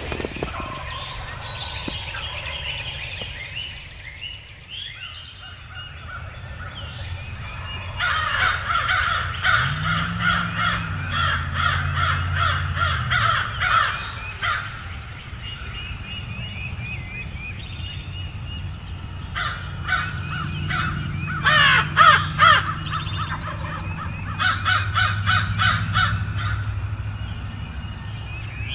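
Crows cawing in several runs of quick caws, loudest about two-thirds of the way in, over small birds singing at dawn.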